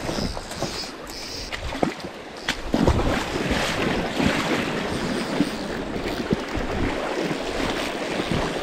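River water rushing and splashing close to the microphone, with a few sharp knocks early on, growing louder and denser from about three seconds in.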